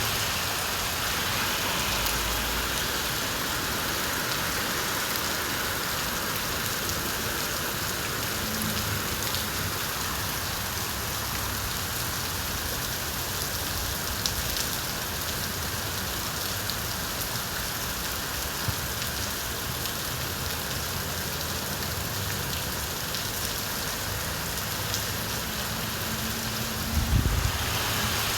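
Steady rain falling, a dense even hiss with scattered individual drop ticks. A brief low rumble swells up near the end.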